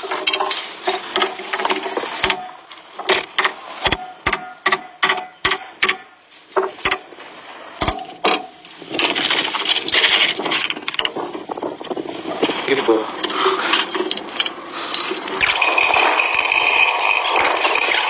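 Hand tools knocking and clicking on an excavator's steel track shoes and bolts, a quick string of sharp metal knocks over the first eight seconds, with voices talking. About fifteen seconds in, a louder steady noisy sound with a high whine takes over.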